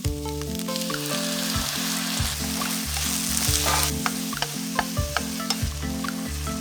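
Food sizzling and crackling in a hot pan as it is stirred, over background music with a stepping bass line.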